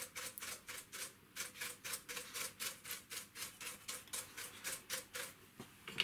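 A brush scrubbing dust off the plastic cyclone assembly of a Dyson V7 cordless vacuum in quick short strokes, about three or four a second, with a brief pause near the end.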